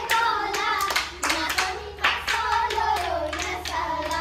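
A voice singing with hand clapping keeping time, a few claps a second.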